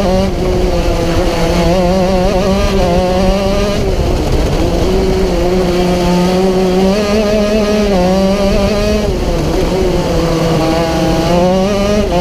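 Racing kart engine heard from on board at full race pace, its note climbing under acceleration and dropping twice as the driver lifts for corners, about four seconds in and again near the end.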